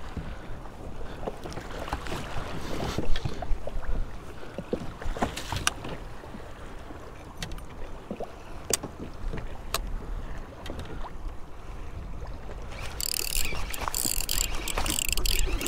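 Water lapping against a kayak hull, with wind and scattered light knocks and clicks. About thirteen seconds in, a fishing reel's drag starts buzzing loudly and keeps going as a fish strikes the free-lined live bait and pulls line off the spool.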